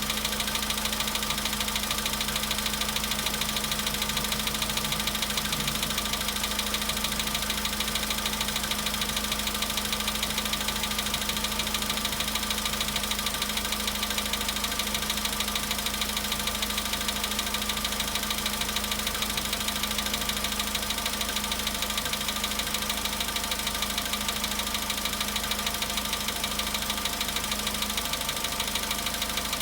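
Volkswagen Polo Sedan's engine idling steadily with a fast, even knock running through it, the knock the owner hears on a cold engine at 93,000 km.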